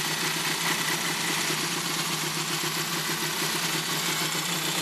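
Honda CA77 Dream's 305 cc air-cooled parallel-twin engine idling steadily with an even, fast pulse.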